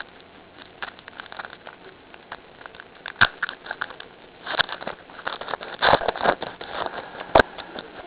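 Baseball trading cards being handled and flipped through, a dry rustling and sliding with scattered sharp clicks that gets busier from about four and a half seconds in.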